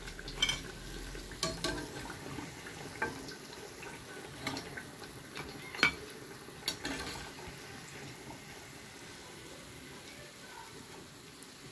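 A steel slotted ladle clinks and knocks against a frying pan and serving plate as freshly fried leaf bajji are lifted out of the oil, over a faint steady hiss of frying oil. The knocks are scattered and sharp, mostly in the first several seconds, leaving only the faint hiss toward the end.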